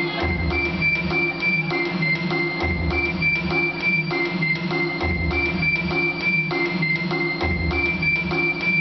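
Panamanian folk music for the devil dance: steady drumming under a short high melody that switches between two pitches and repeats about every two seconds.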